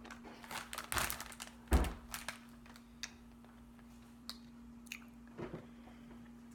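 Teeth biting and crunching a Zotz fizz hard candy: a cluster of sharp cracks in the first two seconds, the loudest just under two seconds in, then a few sparser, fainter crunches and mouth clicks.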